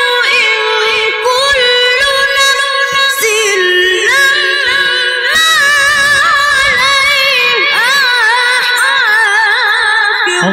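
A male Quran reciter's voice sustained in a very high register, drawn out in long ornamented runs with wavering, gliding pitch. It dips a little lower for a couple of seconds in the middle, then climbs back.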